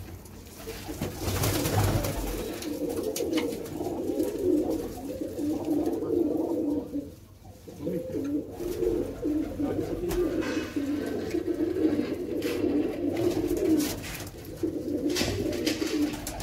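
A flock of domestic pigeons cooing together in a small loft, many calls overlapping into a continuous warbling chorus with a short lull about halfway through. A brief rustling noise comes about a second in.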